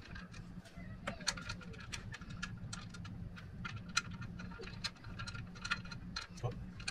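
Irregular light clicks and taps of hands working a drive belt and metal parts on a small engine, over a steady low hum.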